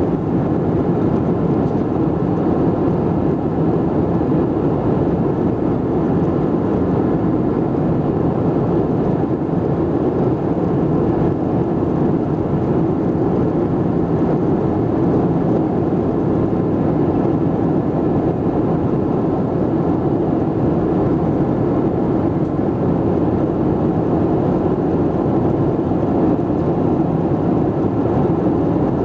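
Steady cabin noise aboard a Boeing 737-700 in flight: the CFM56 engines and the airflow past the fuselage giving an even, unchanging rumble.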